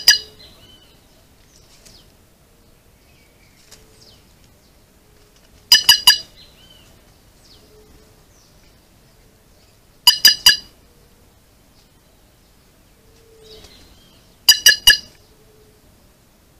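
White-naped jays (gralha cancã) calling: four loud bursts of three or four quick notes, about four seconds apart. Between the bursts come a few faint, low hoots of juriti doves.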